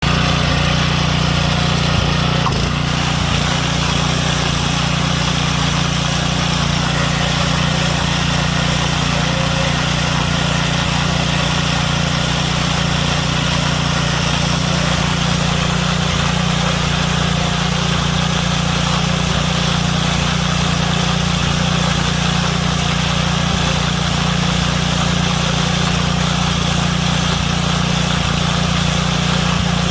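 Mini silage baler running: a steady mechanical drone with a strong low hum.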